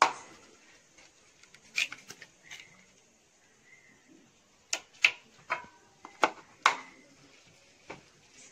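Eggs being cracked by hand: sharp clicks and taps of eggshell breaking, a few early and a quick cluster of about five in the middle.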